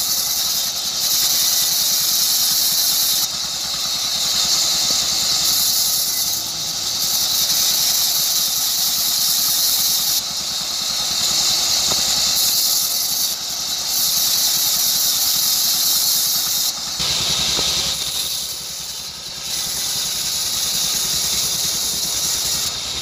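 Power saw cutting a wooden block into boards: a loud, high hissing squeal that eases off and comes back every few seconds as the wood is fed through.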